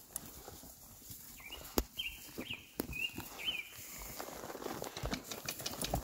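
Scattered knocks of horse hooves stepping about on the ground. A bird chirps four times, quick high notes, a second or two in.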